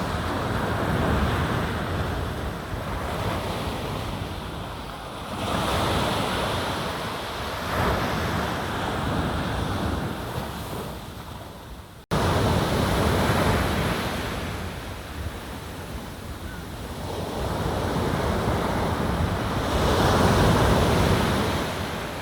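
Sea waves breaking and washing on the shore, swelling and falling away in slow surges every several seconds. The sound drops out abruptly about halfway and comes straight back.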